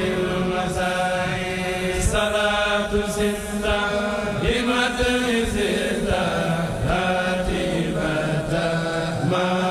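A Mouride kourel, a group of men's voices, chanting a xassida together in long held notes that shift in pitch every second or two.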